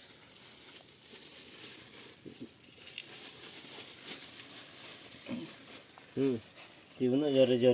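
Crickets trilling in a continuous high, steady chorus at night. Brief human voices break in near the end.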